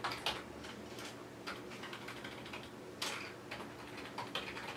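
Typing on a computer keyboard: irregular key clicks in short runs, with a pause of about a second and a half in the middle.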